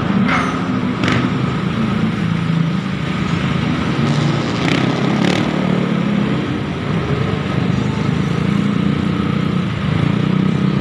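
Motor scooter engine running at a steady riding speed, heard from the rider's seat, under a constant rush of wind and road noise. A few brief clicks come through, about a second in and again around the middle.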